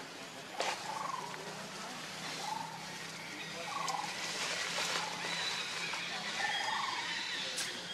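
A few short chirping animal calls, each rising and falling in pitch, a second or more apart, with a couple of sharp clicks.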